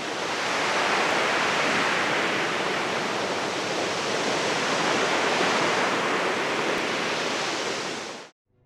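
A steady, even rushing noise like flowing water, with no tone or rhythm in it, that cuts off suddenly near the end.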